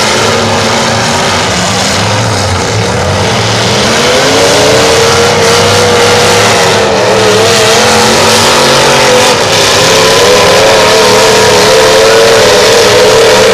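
Demolition derby cars' engines running hard and revving. The revs climb about four seconds in and stay high, wavering, to the end.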